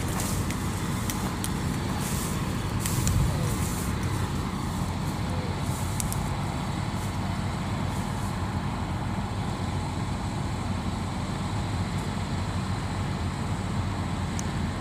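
Kubota DC93 combine harvester's diesel engine running steadily, a low drone with no change in speed. There are scattered light clicks in the first few seconds.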